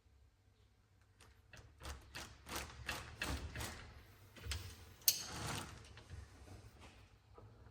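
A run of light metallic clicks and knocks from tools and engine parts being handled during an engine bottom-end teardown, with one sharp click about five seconds in.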